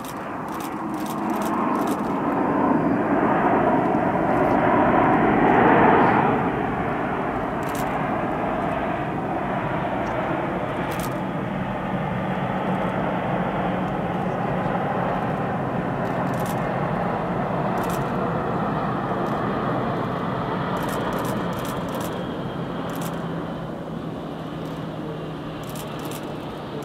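Jet airliner engines, a steady rushing noise that builds to its loudest about six seconds in, holds, then eases off near the end.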